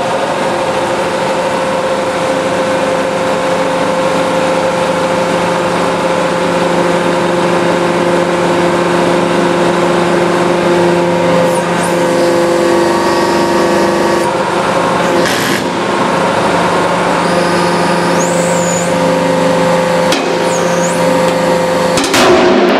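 Hydraulic press running with a steady hum of several tones while its ram crushes a stack of plywood. The wood gives sharp cracks a few times and some brief high squeals. The loudest crack comes near the end, as the stack splits apart.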